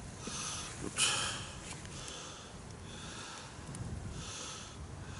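A person breathing audibly through the nose: short sniffing breaths in and out, repeating about once a second.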